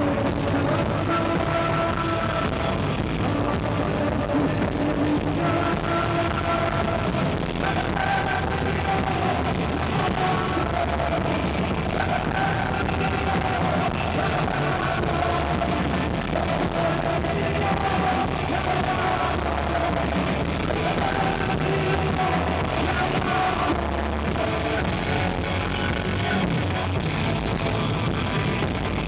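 A rock band playing live at a sound check: electric guitars and drums, with a voice singing a melody into a microphone over them.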